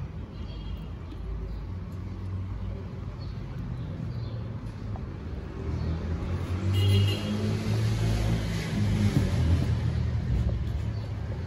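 Street traffic rumbling, with a passing vehicle growing louder a little past the middle and easing off toward the end.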